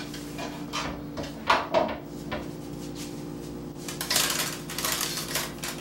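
Kitchen handling sounds at a wooden cutting board while carrots are being peeled: a few short knocks and taps, then about a second and a half of scraping near the end.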